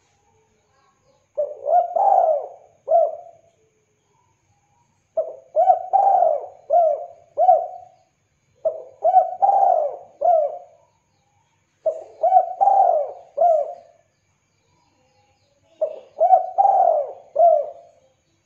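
Caged spotted dove cooing: five phrases, each a quick run of four or five mellow, up-swept coo notes lasting about two seconds, repeated every three to four seconds with short silences between.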